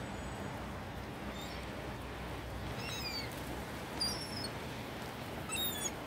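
Birds chirping in short, high, falling calls: a few about three seconds in, a couple about four seconds in and a quick cluster near the end, over a steady background hiss.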